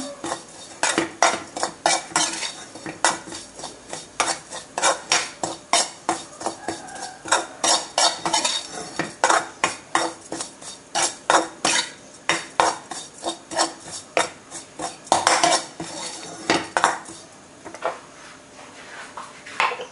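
Metal spatula scraping and clinking against a steel wok while ground chili flakes in oil are stirred together with seasoning powder: a quick, uneven run of clinks and scrapes that stops near the end.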